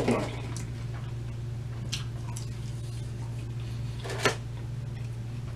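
Steady low hum under soft handling sounds of pizza, a cardboard pizza box and a small plastic sauce cup: a few light clicks and rustles, with a louder short rustle about four seconds in.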